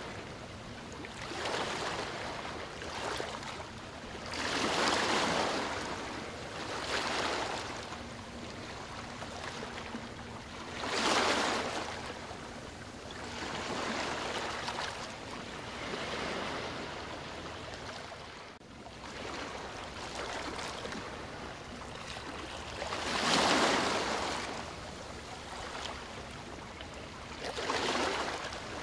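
River water washing against the shore in irregular rushing surges every few seconds, each swelling and fading over about a second, over a steady background hiss. A faint steady low hum sits underneath for roughly the first half.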